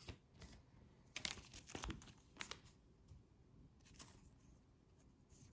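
Faint crinkling and rustling of a thin clear plastic card sleeve being handled as a baseball card is slid into it, with a handful of soft crackles spread through.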